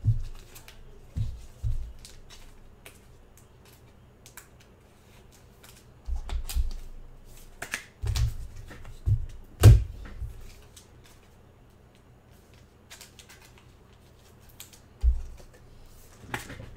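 Trading cards and their packs and boxes being handled: scattered clicks and taps with a few low thumps, and a quieter stretch after the middle.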